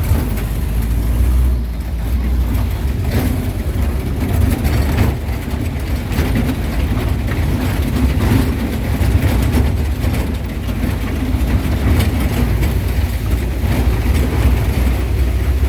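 Jeep on the move: a steady low engine-and-road rumble with many scattered knocks and rattles from the vehicle.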